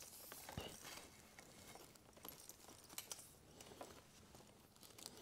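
Near silence with a few faint, scattered clicks and rustles of a leather harness bridle and its lines and metal fittings being handled.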